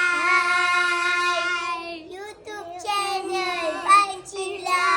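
A young child singing without clear words: a long held note, then a few short broken notes, then another held note that slides down in pitch near the end.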